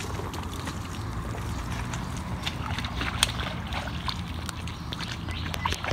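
Boots squelching and splashing through wet mangrove mud and shallow water, a series of uneven steps with small clicks and knocks, one sharper about three seconds in.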